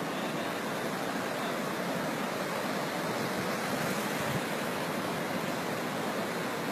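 Flash floodwater rushing through a street: a steady, even rushing of fast-moving water.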